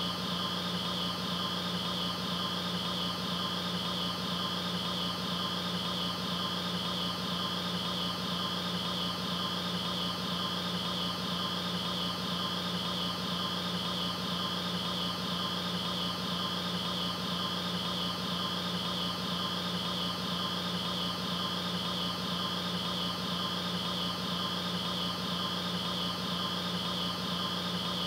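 A steady, unchanging hum over a hiss of noise, with a low drone and a high whine held at one level throughout.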